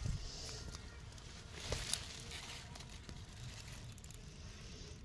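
Faint rustling and scuffling among leafy plants, with a couple of soft knocks about two seconds in.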